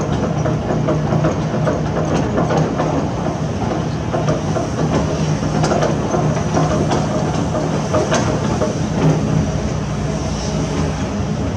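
Heavy construction machine, such as an excavator, with its diesel engine running steadily under load, overlaid by frequent irregular clanks and crunches of metal and debris.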